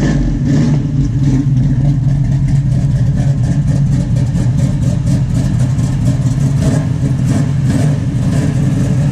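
First-generation Chevrolet Camaro SS's V8 idling with a loud, steady, uneven rumble.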